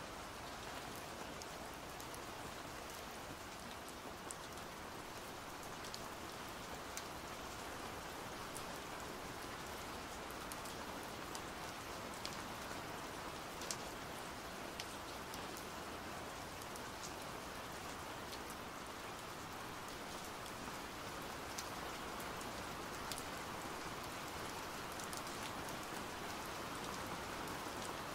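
Steady pouring rain: an even hiss with scattered sharper drop ticks.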